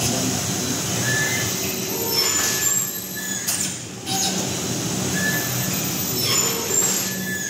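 Plastic bag-making machine with a servo-driven impulse sealer, running through its cycle. There is a steady hum, with short high squeaks and a few brief whooshes coming every second or two as the film is drawn and sealed.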